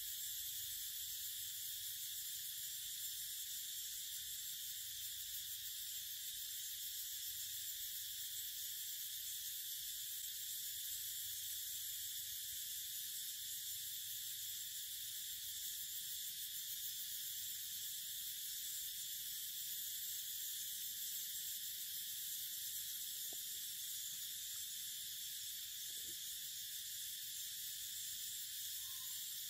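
Steady, high-pitched chorus of insects buzzing in the forest, unbroken throughout.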